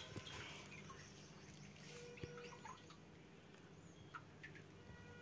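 Near silence: faint outdoor ambience with a few scattered soft ticks and brief faint chirps.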